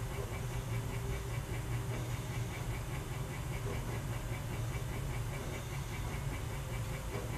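Steady low hum with an even background hiss.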